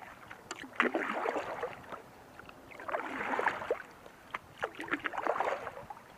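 Kayak paddle strokes: a double-bladed paddle dipping and pulling through the water, alternating sides, with a splash and drip at each stroke, about every second and a half.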